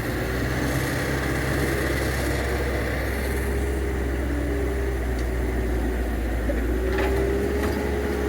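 Diesel engine of heavy earthmoving machinery running steadily, with a slowly wavering hum and a light knock near the end.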